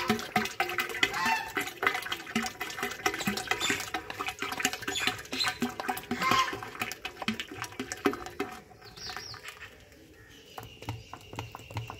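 Liquid poured in a thin stream from a plastic bottle into a large metal pot full of liquid, splashing and gurgling on the surface. Near the end the stream thins to a few drips and the sound gets quieter.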